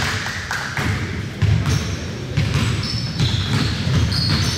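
Basketball game in a gym: a ball bouncing on the court among repeated dull thuds of play, with a sharper knock about a second and a half in. Short high squeaks come in over the second half.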